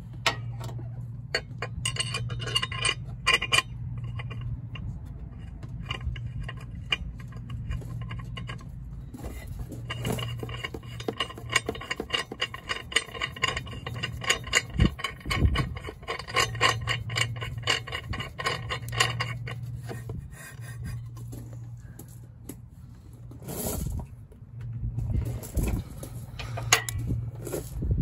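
Ratchet wrench clicking rapidly in long runs as a clutch puller bolt is threaded into the drive clutch of a John Deere Gator XUV550, with a few metal knocks and a steady low hum underneath.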